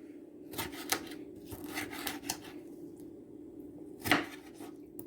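Knife cutting tomatoes on a chopping board: a few irregular cuts and knocks, the loudest about four seconds in, over a steady low hum.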